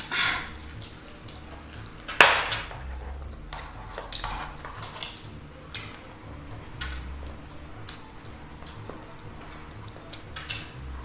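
Mouth sounds of eating fried chicken: irregular chewing and crunching, with scattered sharp clicks against a plate.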